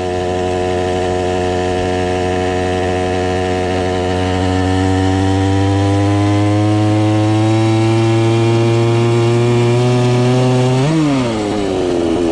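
Stihl MS460 two-stroke chainsaw engine driving a motorized bicycle, running hard under load, its pitch climbing slowly as the bike gathers speed. About eleven seconds in the pitch jumps briefly, then drops to a lower, steady note.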